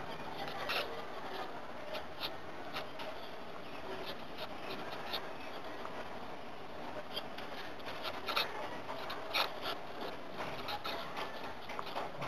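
Felt-tip marker rubbing and scratching across paper in short, irregular strokes as a line of handwriting is lettered.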